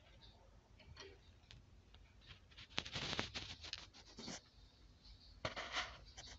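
Faint scratchy rubbing noises with small clicks, in two short spells about three seconds and five and a half seconds in, over a low steady hum.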